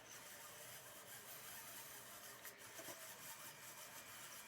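Near silence, with faint rubbing and a couple of soft clicks from a typewriter ribbon and spool being handled.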